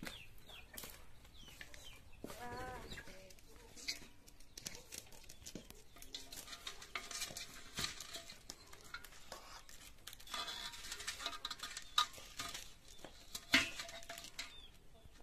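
Thin wooden twigs clacking and scraping against the inside of a large aluminium pot as they are laid across it, with the sharpest knocks near the end. A short wavering farm-animal call sounds about two and a half seconds in.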